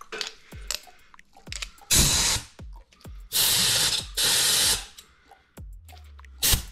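Compressed-air blow gun hissing in three short blasts, one about two seconds in and then two back to back from about three and a half seconds, with light clicks and knocks of handling between them.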